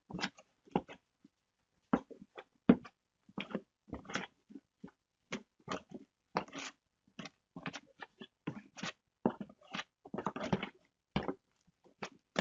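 Irregular scraping, crunching and light knocking from moist potting soil being worked and pressed by hand, several short sounds a second with uneven spacing.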